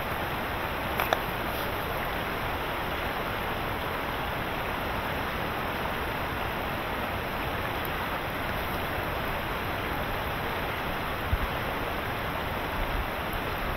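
A steady rushing noise with no pitch, with a sharp click about a second in.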